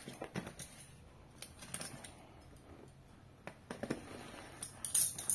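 Utility knife slicing through packing tape and plastic wrap on a cardboard box: irregular short scratches and crackles, the loudest burst coming near the end.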